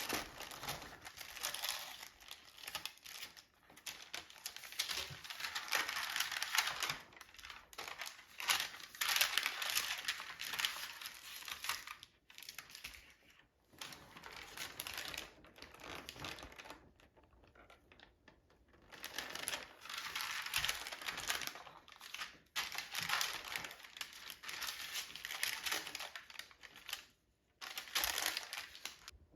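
Packaging crinkling as it is handled, in repeated rustling bursts with short pauses between them.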